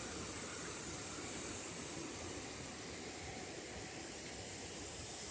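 Shallow, clear stream rippling over a gravel and rock bed: a steady, even rush of water.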